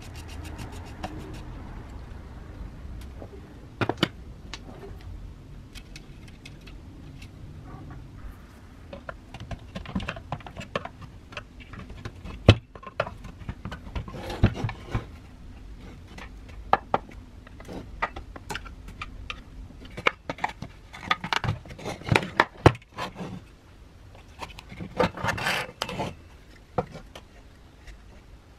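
Disassembly of a Makita 1901 electric planer by hand: a screwdriver ticking as it turns out the brush cap, then the plastic housing and metal motor parts clicking, scraping and knocking as they are handled and pulled apart, with a few sharp knocks.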